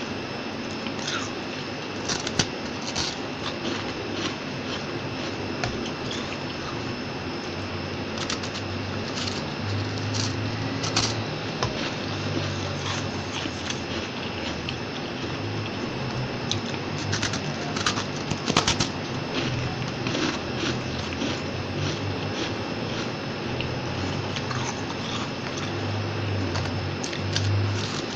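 Biting into and chewing a disk of fluffy freezer frost close to the microphone: soft crunching with sharp crackles scattered irregularly, a quick cluster of them about two-thirds of the way in.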